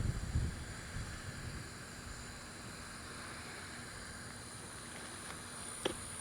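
Wind rumbling on the microphone at first, then a faint steady hiss. Near the end comes a single short, sharp pop from the water, which the anglers take for a trout striking at the surface.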